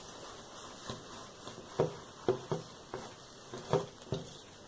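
A string of light, irregular knocks and taps, about seven in a few seconds, from a steam iron and hands handling paper on a wooden tabletop.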